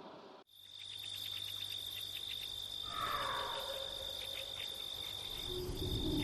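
Steady high chirring of crickets, starting after a brief gap about half a second in. A faint falling call sounds about three seconds in, and a low rumble swells near the end.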